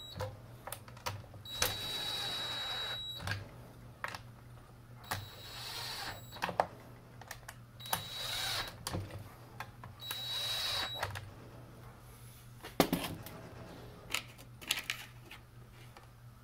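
Cordless drill-driver driving screws into a chainsaw's plastic housing in four short bursts of about a second each, each with a steady high motor whine. Sharp clicks and taps of tools and parts being handled come between the bursts and after them.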